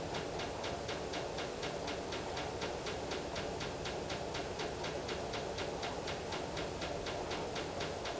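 Rapid, even mechanical ticking, about five ticks a second, over a steady low hum.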